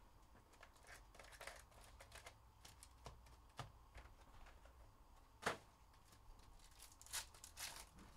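Faint handling noise from a cardboard trading-card box and foil-wrapped card packs: scattered light clicks and rustles, a sharper tap about five and a half seconds in, then crinkling and tearing of a foil pack wrapper near the end.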